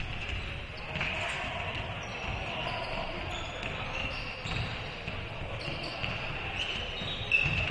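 A basketball dribbled on a hardwood gym floor, with short high sneaker squeaks now and then and a sharper squeak near the end.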